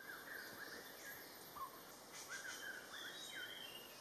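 Faint bird calls over a low hiss of forest ambience: short chirping notes sliding up and down, repeated several times, with a few higher notes.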